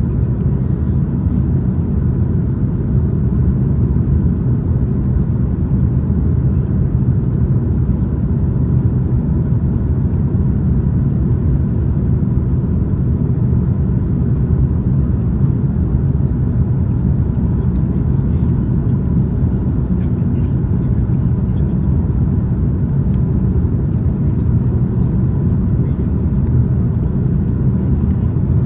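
Steady cabin rumble of an Airbus A330-200 in flight on approach, from its engines and the air rushing past, with a faint steady high tone running underneath.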